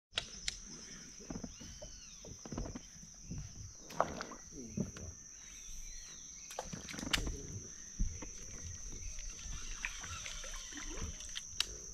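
Knocks and water sloshing against a small fishing boat on a river, with scattered sharp knocks throughout, under a steady high-pitched drone and a few short bird-like calls.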